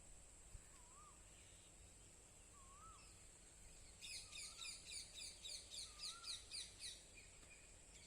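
Birds calling faintly: a rapid run of high, downward-sweeping chirps, about five a second, for some three seconds midway, and a few short, lower, rising-and-falling whistles a second or two apart. A steady high-pitched whine runs underneath.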